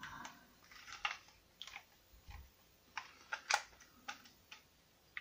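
Light, irregular clicks and taps of 3D-printed plastic pistol parts being handled and fitted together during reassembly.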